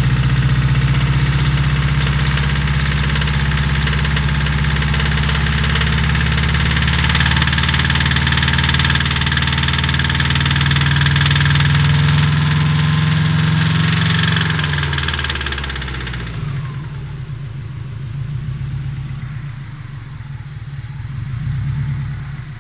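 Car engine running with a connecting-rod bearing knock, a rapid rhythmic knocking tied to engine speed: the sign of a worn or spun rod bearing. About fifteen seconds in the engine speed falls and it settles into a quieter, slower run.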